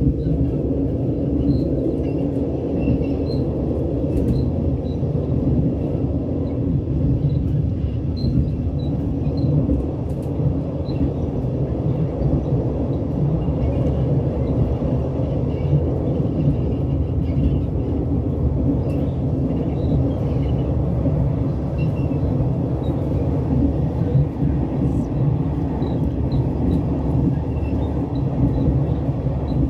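Steady running rumble of a train in motion, heard from inside a passenger carriage. Faint short high squeaks come through now and then.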